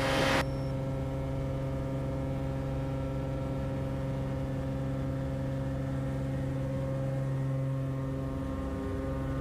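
Cessna 180's six-cylinder Continental O-470 engine and constant-speed propeller at full takeoff power, a steady drone heard from inside the cockpit during the takeoff roll.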